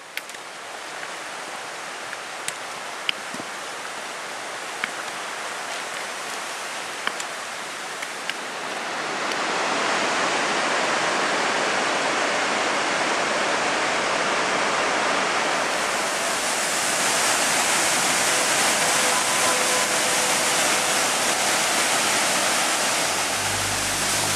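Waterfall on a mountain river: a steady rush of falling water that grows louder about nine seconds in and gains more hiss around sixteen seconds.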